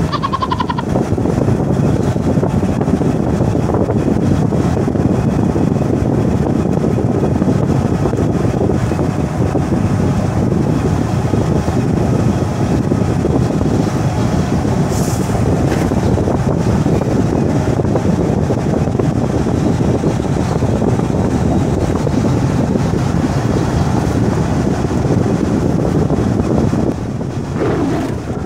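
Steady road and engine noise inside a vehicle cab cruising at highway speed, with wind rushing past. A brief hiss about halfway through.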